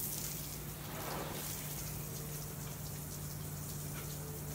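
Garden hose spray nozzle rinsing soap off a car windscreen: a steady hiss of water spattering on the glass, with a steady low hum underneath.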